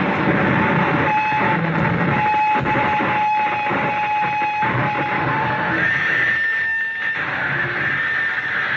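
Harsh noise played live on a tabletop rig of effects pedals: a dense, loud wall of distorted noise. A held whine runs through the first half, and a higher whine takes over about six seconds in.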